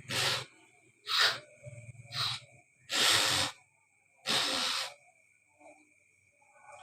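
A person forcing breath out in five sharp, hissing bursts about a second apart, the last two longer, clearing phlegm from the nose and throat during gurah treatment.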